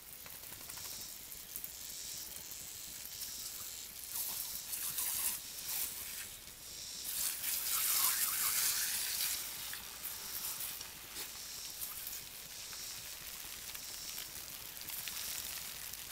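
Oscillating lawn sprinkler's water jets hissing and pattering on grass, louder for a couple of seconds just past the middle as a dog snaps at the spray.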